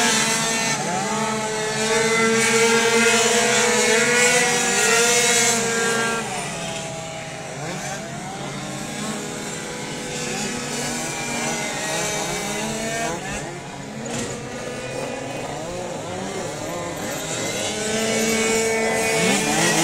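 Several small two-stroke racing scooter engines running at once, their overlapping whines rising and falling as riders work the throttles and ride past while forming the starting grid. The sound is louder in the first six seconds and again near the end.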